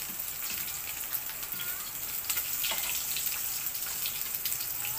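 Freshly rinsed dried danggit (rabbitfish) frying in hot oil in a pan: a steady sizzle with scattered crackles.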